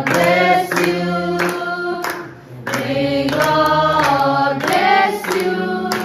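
Music: a song of several voices singing together like a choir, over a steady low accompaniment, with a brief drop about two seconds in.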